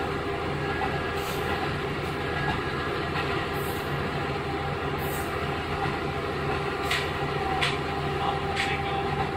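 A KiHa 11 diesel railcar with a Cummins engine running along the line: a steady drone of engine and wheels on rail, with a few short, sharp clicks.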